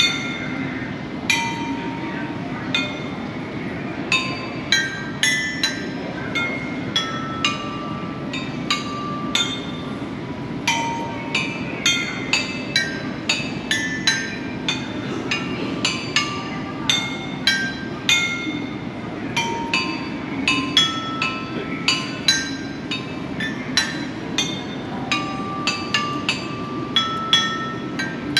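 A tuned percussion instrument struck one note at a time, with bright, short ringing tones picked out as a halting tune of about one to two notes a second, over a steady low room hum.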